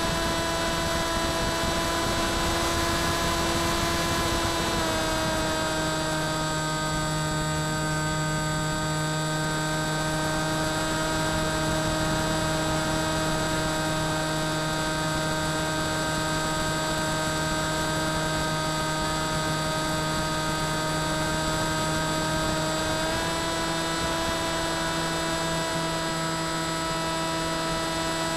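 Electric motor and pusher propeller of an FX-61 Phantom flying wing running in flight, a steady whine with wind rushing past the onboard camera. The pitch drops a little about five seconds in as the throttle comes back, and rises again near the end.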